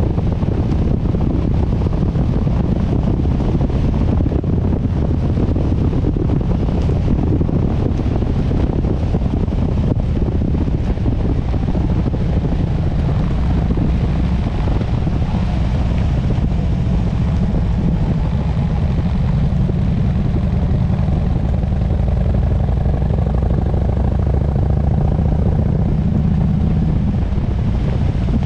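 Harley-Davidson Sportster S V-twin engine running steadily while the motorcycle is under way, with wind rushing over the microphone.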